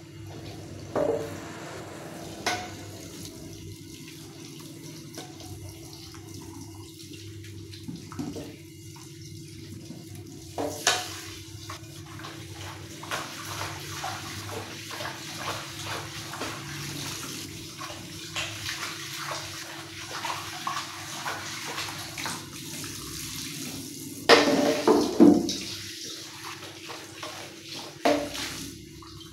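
Kitchen tap running into a stainless steel sink while a wok-style pan is scrubbed and rinsed, with several metal clanks of the pan against the sink, the loudest cluster about five seconds before the end. A steady low hum sits under it.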